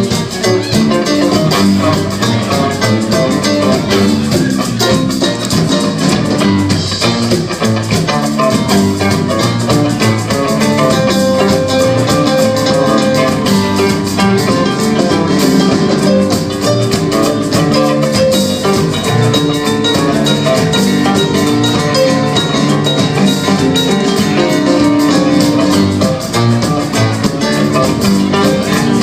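A band playing live, with guitar to the fore over a steady beat.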